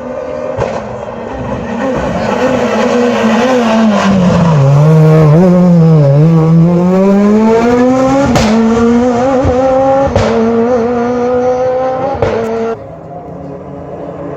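Rally car engine slowing, its revs falling to a low point, then accelerating hard with revs climbing through two upshifts. Each gear change is marked by a sharp crack. The engine sound drops away suddenly near the end.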